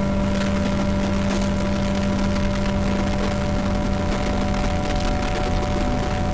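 Droning experimental music: several steady held tones over a low rumble, with scattered faint crackles.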